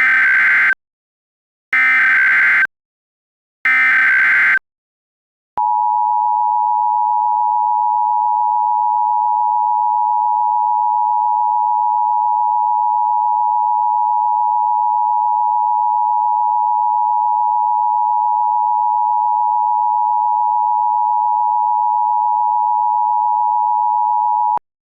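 Emergency Alert System activation: three one-second squawks of SAME header data, then the EAS attention signal, a steady two-tone 853 and 960 Hz tone held for about 19 seconds, announcing an emergency alert message.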